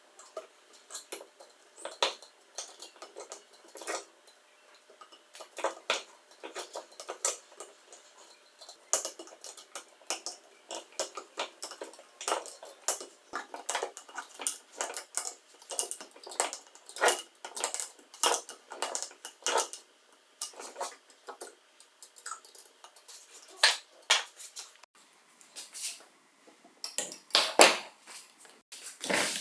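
Irregular clicks, clinks and taps of small metal parts and hand tools being handled on a workbench, with a couple of louder knocks near the end.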